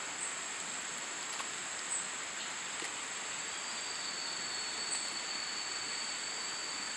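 Rainforest insects droning in chorus: a steady high-pitched whine, joined about halfway by a second, lower steady drone, over a hiss of forest ambience.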